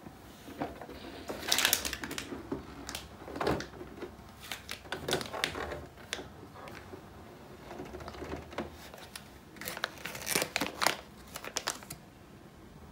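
Plastic clicks, knocks and rattles as the top assembly of an HP Envy inkjet all-in-one printer is lifted open and handled. They come irregularly, with clusters near the start and again later on.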